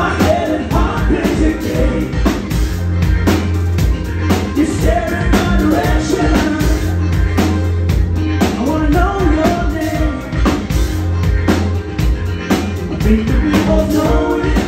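Live rock band playing a song, with a steady drum-kit beat, bass, and a singer's vocal.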